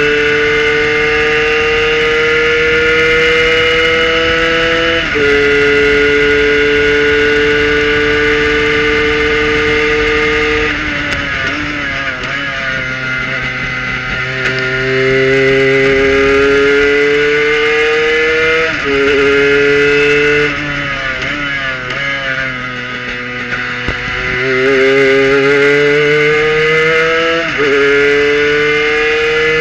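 Kohler-powered Prototype 1 race car's engine at racing speed, heard from the cockpit. Its pitch climbs steadily in each gear and drops sharply at upshifts about 5, 19 and 27 seconds in. Between them come stretches of lower, uneven revs as the car brakes and downshifts for corners.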